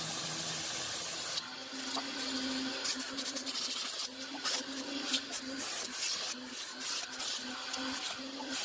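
Stiff-bristled hand brush scrubbing cloth seat upholstery, a run of irregular scratchy strokes.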